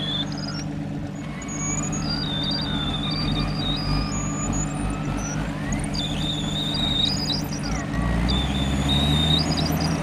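Mitsubishi Delica L300 4WD van's engine running under load as the van works through deep snow, growing louder about eight seconds in as it pushes forward. High squealing tones and rising and falling whines come and go over the engine.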